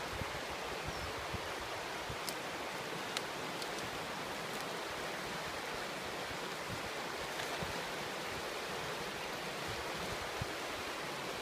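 Shallow river rapids rushing steadily over rocks and stones.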